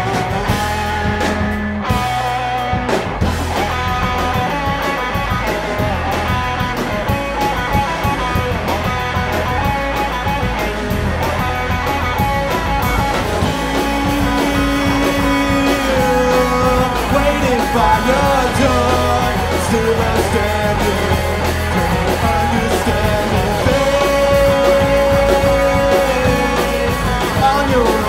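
Rock band playing: electric guitars and drums with a sung vocal.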